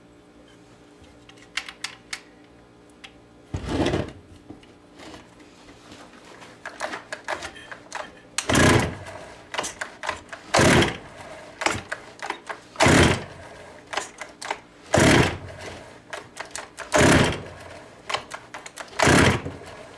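Pioneer P25 chainsaw being pull-started on its recoil starter: seven rope pulls, one about every two seconds after the first, each a short burst of the engine cranking over without catching. The primed saw fails to fire, which the owner takes for no spark.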